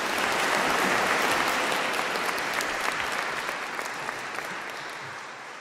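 Audience applauding, the clapping building up in the first second and then slowly dying away.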